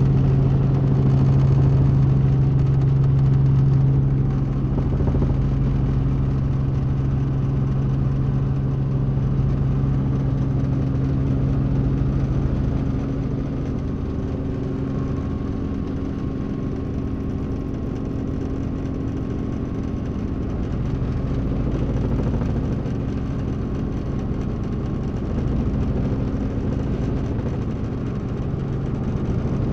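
Cabin noise of a Robinson R44 helicopter in flight: its six-cylinder Lycoming piston engine and rotors make a steady, loud drone with a held hum. The drone is strongest for the first few seconds, then eases a little.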